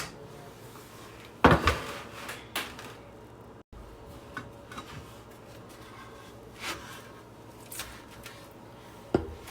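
Kitchen handling sounds of dinner being plated: a few sharp knocks and clicks of utensils and containers against dishes, the loudest pair a little over a second in and single clicks scattered through the rest.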